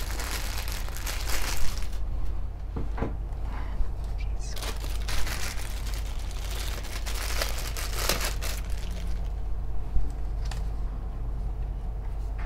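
Clear plastic bags crinkling as they are handled and pulled off pink plastic cat-ear attachments, in several irregular bursts with short pauses between.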